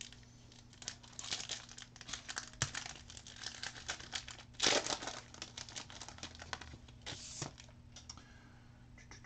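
Foil wrapper of a Panini Crusade basketball card pack being torn open and crinkled by hand: a run of crackles, loudest about halfway through.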